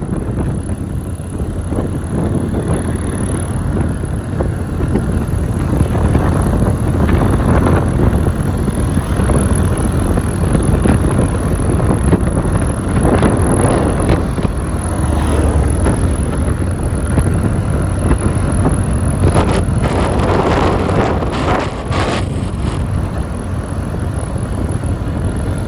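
Ride on a Honda Click 125i scooter: wind rushing over the microphone on top of steady engine and road noise, swelling louder briefly about halfway through and again past three-quarters of the way.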